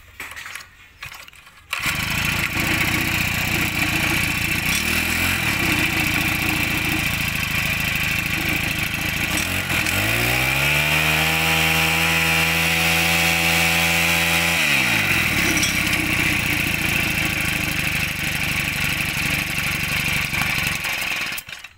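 Honda four-stroke brush cutter engine starting about two seconds in and idling. It is then revved up to high speed for about five seconds around the middle, falls back to idle, and cuts off just before the end.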